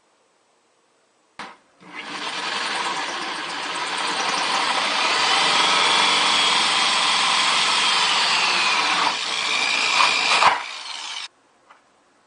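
Power drill running under load, boring a large hole through a plastic bucket for about nine seconds, with its pitch shifting as it cuts. A click comes just before it starts, and it stops abruptly.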